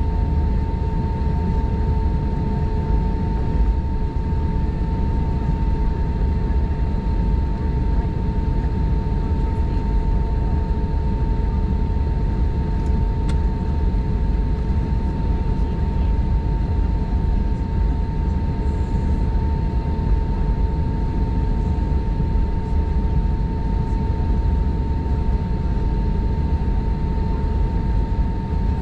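Airbus A320-232 cabin noise while taxiing on a single IAE V2500 engine, the second engine not yet started: a low, steady rumble with a steady whine held throughout.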